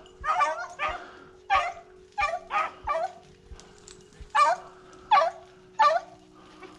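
Rabbit-hunting dogs barking in short, separate yelps, about ten over several seconds: hounds giving mouth as they pick up a rabbit's scent.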